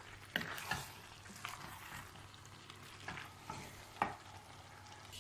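A spoon stirring yam porridge in a cooking pot, with scattered light clinks and scrapes against the pot over a faint steady hiss of the simmering food.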